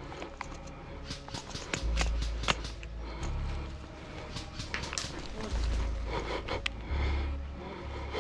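Heavy breathing close to the microphone, in deep puffs about every two seconds, with scattered sharp clicks and snaps.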